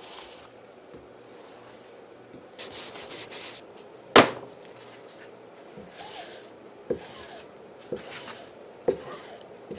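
A hand-held abrasive being stroked along the steel edge of a Ka-Bar kukri, rasping strokes about once a second, each ending with a light knock. A quick run of strokes comes first, then a single loud sharp clack about four seconds in.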